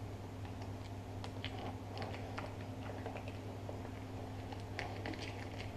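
Small, irregular clicks and crackles from a cooked rock lobster's tail shell as it is handled and the meat is pried out by hand, over a steady low hum.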